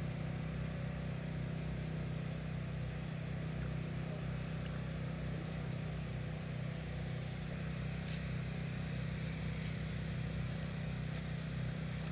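A steady low motor hum, unchanging throughout, with a few faint clicks in the second half.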